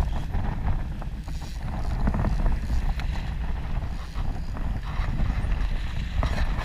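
Wind buffeting the camera microphone over the low rumble of a fishing boat moving through choppy sea, with a few short knocks and splashes.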